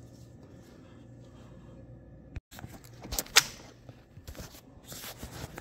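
Handling noise as the recording phone is carried and moved: a faint hum, then a few sharp knocks, one much louder than the rest, and scattered rustles.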